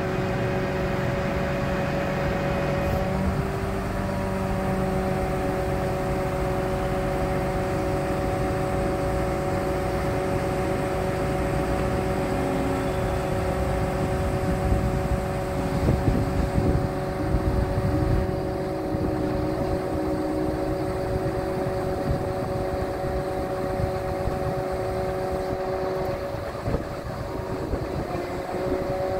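A diesel utility truck's engine running with a steady whine from the hydraulic system powering the Altec AA755 aerial boom and bucket as they move. A few louder low rumbles come about halfway through.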